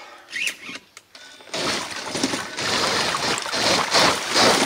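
A 100 lb electric-converted Primal RC Mega V3 trail truck driving through a shallow creek, its tyres churning and splashing water; the loud splashing starts about a second and a half in and keeps on.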